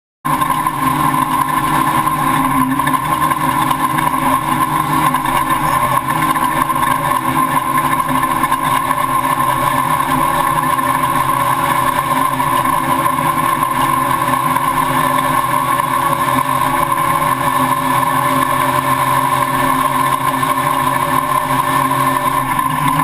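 Off-road race truck's engine running steadily at a constant pitch, loud and unbroken, cutting in abruptly just after the start.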